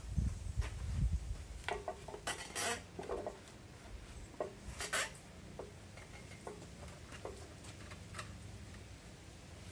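Metal tools and parts being handled at a workbench: a couple of low thumps at the start, then scattered clinks, clicks and rattles that thin out after about five seconds.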